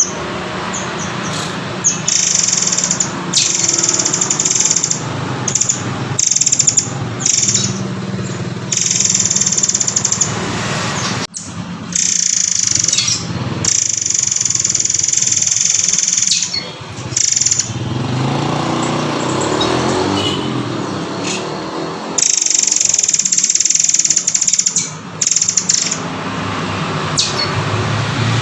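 A murai air (murai kopi) singing: long runs of high notes broken by short pauses, over a steady lower background noise.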